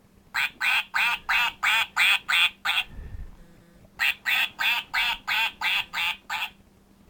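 Recorded duck quacking: two runs of about eight quick quacks, about three a second, with a short pause and a low thump between them.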